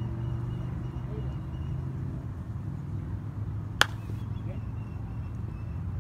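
Softball bat hitting a slow-pitch softball once, about four seconds in: a single sharp crack with a brief ring. A steady low rumble of wind runs underneath.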